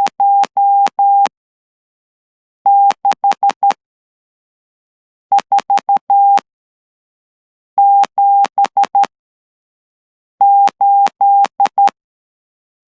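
Morse code sidetone from a hand-keyed straight key, sent at 12 words per minute: a steady mid-pitched beep broken into dots and dashes. Five code groups of about a second each, with pauses between them, and a slight click as each beep starts and stops.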